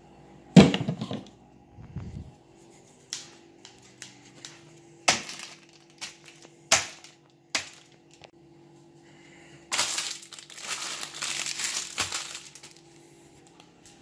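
A refrigerator door opening with a loud clunk, then a handful of separate sharp clicks and knocks as things are handled. Near the end, about three seconds of plastic food wrapping crinkling and tearing as it is cut open with kitchen scissors.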